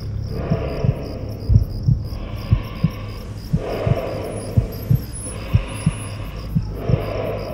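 Heartbeat sound effect: steady low thumps about twice a second over a droning low hum, with a breathy rushing noise swelling in and out about every second and a half.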